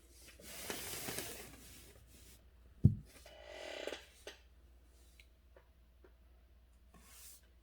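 Paper rustling and handling noises at a writing desk, with one sharp knock a little under three seconds in.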